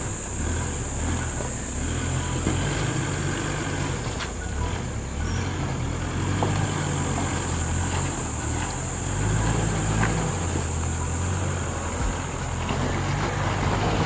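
Four-wheel-drive engine working over an off-road obstacle, its revs rising and easing off, loudest about two-thirds of the way through.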